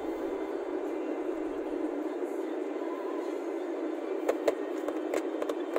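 Steady road and engine noise inside a moving car's cabin, with a run of sharp clicks starting about four seconds in.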